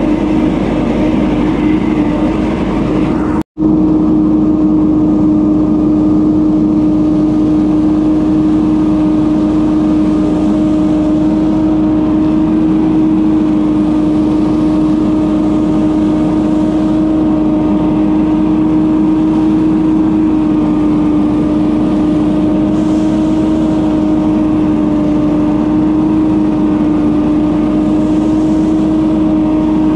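Leaf blower engine running steadily at full throttle with an unchanging hum and a rush of air, cut off for a split second about three and a half seconds in.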